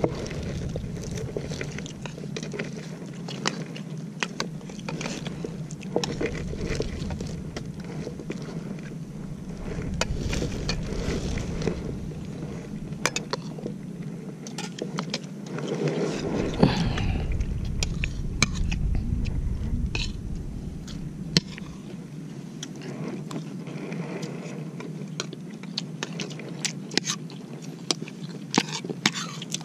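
A metal spoon clicking and scraping against a plate of rice during eating, with chewing: many short, sharp clicks, most frequent near the end, over a low rumble that comes and goes.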